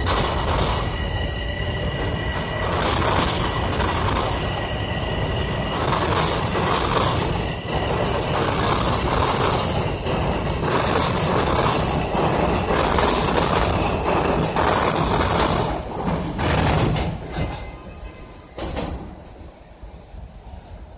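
Metro-North electric commuter train passing close by, loud, its wheels clattering over the rails in repeated bursts, with a steady high whine in the first few seconds. The noise falls away over the last few seconds as the train pulls off.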